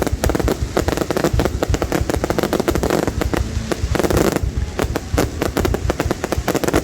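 Fireworks going off in a continuous rapid barrage of bangs and crackles, many per second.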